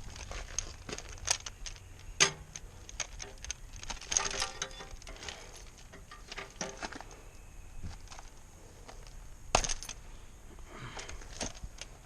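Irregular clicks, knocks and rustling as packing material and parts are handled, with a sharper knock about two seconds in and another near the end.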